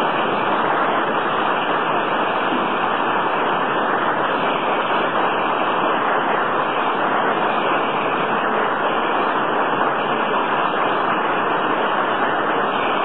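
Audience applauding steadily without a break, heard through an old, muffled, hiss-laden 1948 recording.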